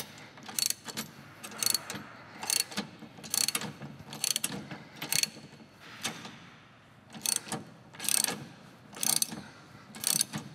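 Hand socket ratchet clicking in short bursts, roughly once a second, as a rear-suspension bolt is run down by hand.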